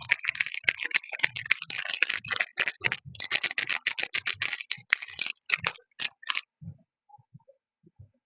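Packaging being opened by hand: rapid, irregular crinkling and crackling of wrapping, with light knocks of handling. It stops about six seconds in, leaving only faint handling noises.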